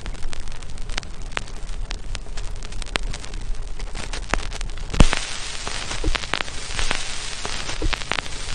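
Old-film crackle sound effect: a steady hiss of static dotted with many small clicks and pops. A loud pop comes about five seconds in, and the hiss is brighter after it.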